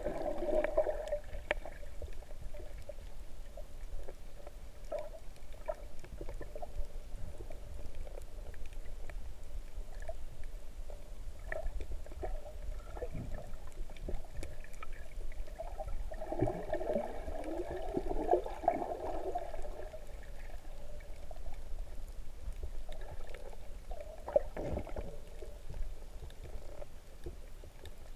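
Underwater sound picked up by a camera held in shallow seawater: a steady low muffled rumble of moving water with scattered light clicks, and gurgling, bubbling swirls at the start, for a few seconds a little past halfway, and briefly near the end.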